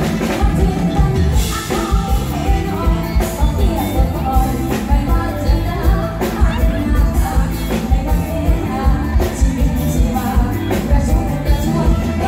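A woman singing a Thai luk thung song live into a microphone over a full band with a steady drum beat, heard through a concert PA.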